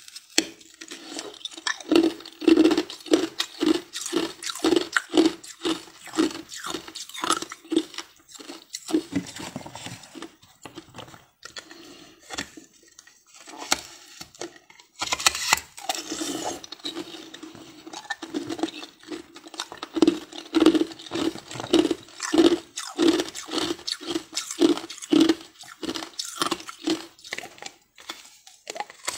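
A mouth sucking and slurping on a block of ice in a quick rhythm of about two or three wet pulses a second, with sharp clicks and crackles from the ice against lips and teeth.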